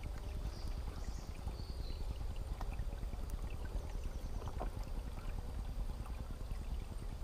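Shallow stream water gurgling and splashing close to the microphone as a water bladder is held in it and filled.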